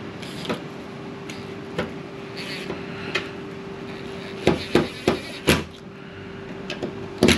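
Screws being driven with a cordless drill to fasten a metal hinge to a wooden hatch cover board: short whirs of the drill and a run of sharp knocks, four in quick succession about halfway through and two more near the end.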